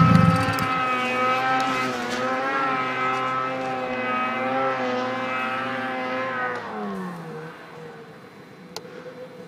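Snowmobile engine running at a steady, slightly wavering pitch, then falling in pitch as the throttle comes off about seven seconds in, after which it fades to faint.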